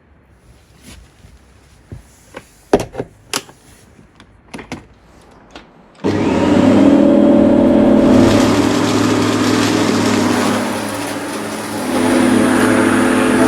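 A few light clicks and knocks, then about six seconds in the Bosch ARM 37 electric lawnmower's motor switches on abruptly and runs at a steady hum. It sags about ten seconds in and picks back up to full speed near the end.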